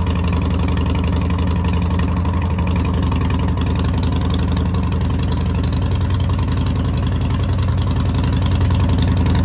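Harley-Davidson Heritage Softail's V-twin engine idling steadily on a test start, running with its air filter off. It sounds great, with the exhaust sealed.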